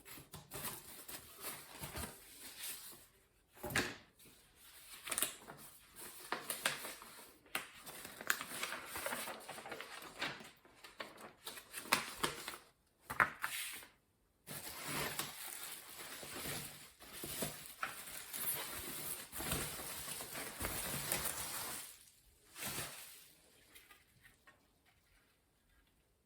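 A cardboard shipping box being opened by hand: packaging rustling and crinkling, tape and cardboard tearing, with scattered knocks and clicks. The handling stops about 23 seconds in.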